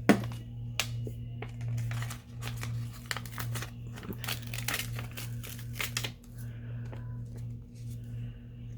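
Paper being handled: a sharp tap just after the start, then a run of crinkling and rustling strokes in the middle, over a steady low hum.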